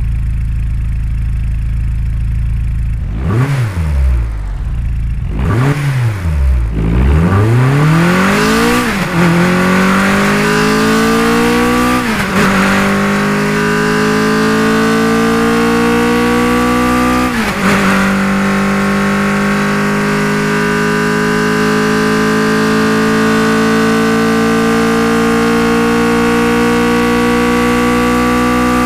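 Sports car engine and exhaust idling, then revved twice, then pulling away and accelerating through the gears. The pitch rises, drops at two gear shifts, and finishes in a long, slow climb.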